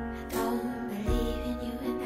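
Background music: a melody of held notes changing in steps over a repeating low beat.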